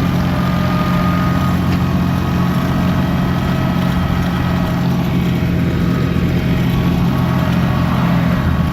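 Ford 445D diesel tractor engine running steadily at a constant speed while towing.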